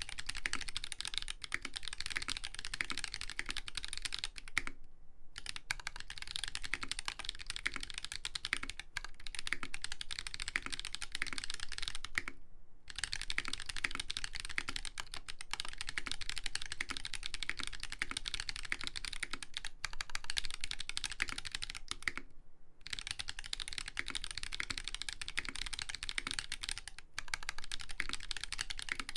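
Fast, continuous typing on an LZ Iron custom mechanical keyboard with a brass plate, Tribosys 3204-lubed Holy Panda tactile switches and ABS keycaps. Three brief pauses break the typing.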